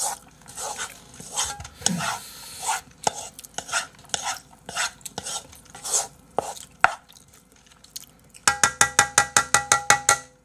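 Wooden spatula scraping and scooping fried rice around a metal frying pan in irregular scrapes. Near the end comes a quick run of about a dozen sharp, ringing taps on the pan.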